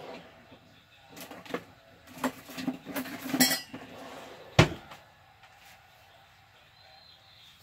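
Dishes and kitchen utensils clinking and clattering on a countertop for a few seconds, ending in one sharp knock about four and a half seconds in.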